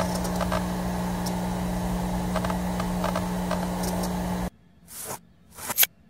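Sound-design effects for an animation: a steady electrical hum with crackle and scattered clicks that cuts off suddenly about four and a half seconds in, then two short whooshes, the second louder and ending abruptly.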